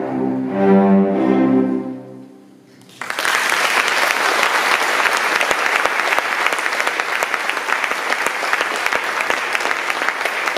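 A cello ensemble plays the final notes of a tango, which die away about two seconds in. After a short pause, applause breaks out suddenly and continues.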